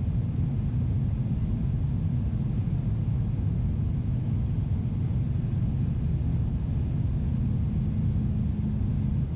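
Steady low rumble of a Boeing 777-300ER's engines and airflow heard inside the passenger cabin in flight.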